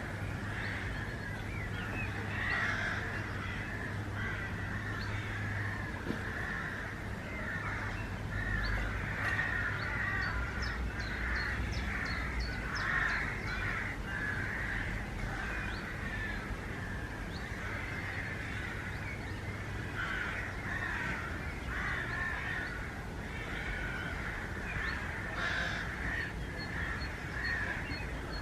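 A dense, continuous chorus of many birds calling, with short runs of higher, quicker notes now and then.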